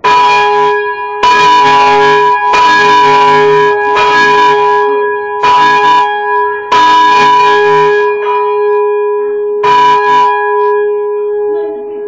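Church bells of Kettering parish church ringing, heard close up inside the bell chamber: about seven loud strikes roughly every second and a half, with a longer gap before the last, over a steady hum that rings on between the strikes.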